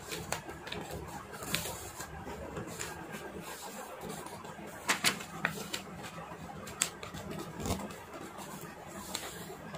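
A sheet of paper being folded and creased by hand: scattered crisp rustles and clicks, the sharpest cluster about five seconds in.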